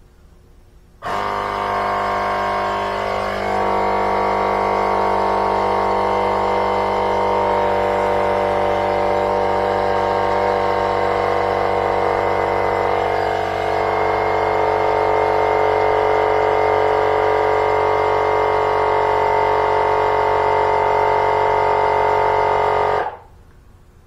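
Portable tire inflator's small compressor running steadily, pumping up a lawn tractor tire that has just been treated with Slime sealant. It starts abruptly about a second in, dips briefly about halfway, and cuts off sharply near the end.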